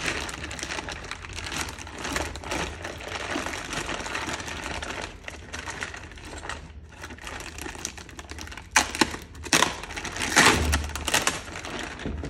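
Clear plastic bag crinkling and rustling as hands handle and unwrap the turbocharger inside it, with a run of louder, sharper crackles about nine to eleven seconds in.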